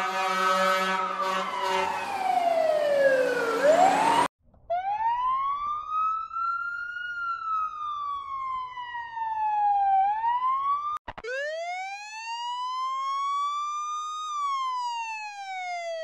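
Three emergency-vehicle sirens played one after another, each a slow wail rising and falling in pitch. First a UAE fire truck's siren over a steady drone, cut off abruptly about four seconds in. Then a US ambulance's wail, and after a click another ambulance wail, from a UAE ambulance.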